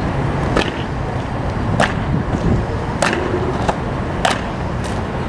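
Evzone guards' hobnailed tsarouchia clogs striking the stone pavement in a slow ceremonial march: a sharp clack about every second and a quarter, over steady background noise.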